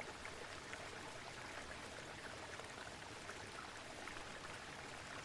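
Waterfall water rushing steadily, an even splashing hiss with no pauses.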